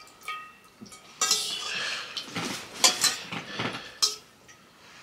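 Metal fork scraping and clinking against a bowl of thick noodles. There is a busy stretch of scraping from about a second in, with several sharp clinks near the end.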